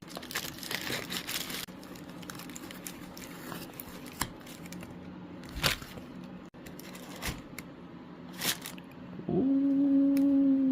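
Smartphone retail box and packaging being opened and handled: tearing and crinkling of paper and plastic with a few sharp clicks and snaps. About nine seconds in, a steady low hum starts and holds with a slight downward sag.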